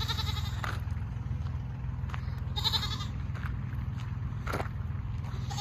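A goat bleating twice: one short bleat right at the start and another about two and a half seconds in.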